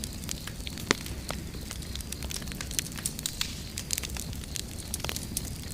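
Bonfire crackling, with irregular sharp pops and snaps over a steady low rumble of flames. The loudest pop comes about a second in.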